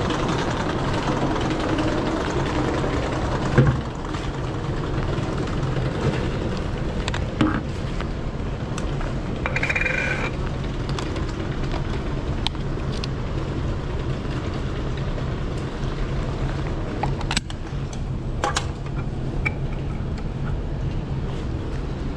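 Steady background noise of a rainy city street, with a low hum running under it. A few short sharp knocks and clicks stand out, the loudest about three and a half seconds in, typical of camera gear being handled.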